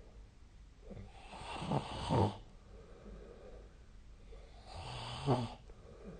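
A sleeping person snoring: two snores about three and a half seconds apart, each lasting about a second.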